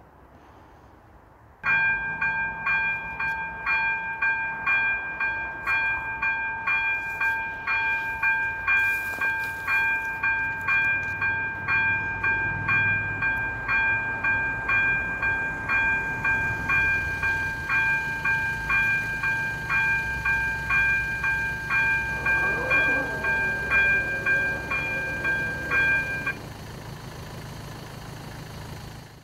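Level-crossing warning bell (ZV-02 electronic bell of an AŽD 97 crossing signal) starts suddenly, rings a rapid, steady series of identical dings, and cuts off abruptly near the end. From about halfway, a low rumble of a passing train runs under the ringing.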